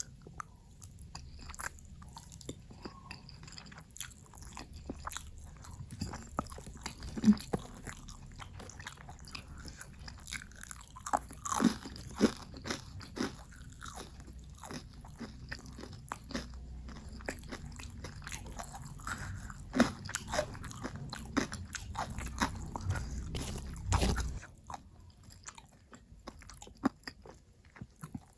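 A person eating close to the microphone: crunchy bites and chewing, with irregular sharp crunches, the loudest about a quarter of the way in and near the middle.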